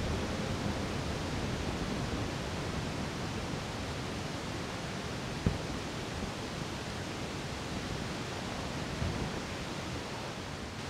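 Steady, even hiss with no distinct sound in it, and a single sharp click about five and a half seconds in.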